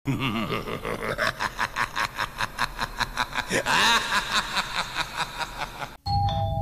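A long laugh laid over a title card, a rapid run of 'ha' pulses about five a second, with a louder drawn-out stretch around four seconds in. It cuts off abruptly about six seconds in, and a low hum with steady tones follows.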